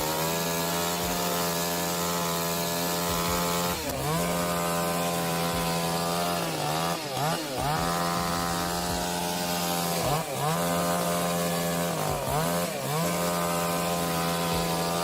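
Two-stroke chainsaw running at high revs while cutting a tree, its steady whine dropping briefly and climbing back several times as the throttle eases and the chain bites.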